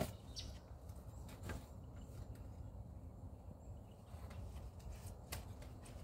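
Faint outdoor background noise: a steady low rumble with a few light clicks scattered through it.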